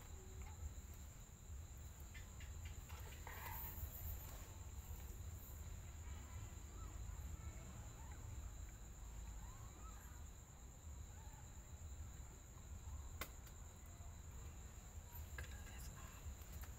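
Faint, steady, high-pitched chirring of insects over a low rumble, with a single sharp click about thirteen seconds in.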